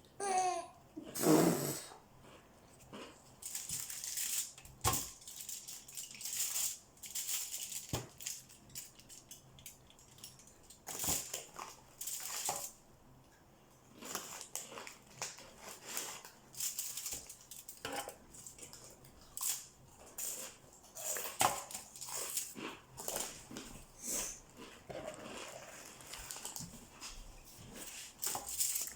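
Metal ice cream scoop scraping and clicking through cookie dough in a bowl and onto a tray: irregular short scrapes and knocks, with a brief pitched sound falling in pitch at the start.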